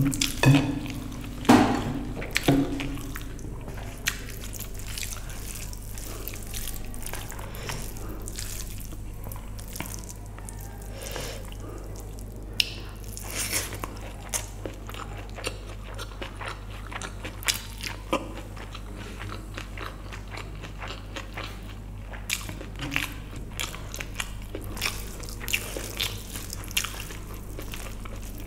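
Close-miked eating sounds: chewing and wet mouth clicks as vegetable biryani is eaten by hand, with fingers squishing through the rice on the plate. Short sharp clicks come throughout, in a louder cluster at the start.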